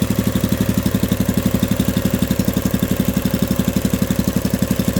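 Honda GX160 single-cylinder engine on a wacker plate compactor running steadily, with an even, rapid pulse.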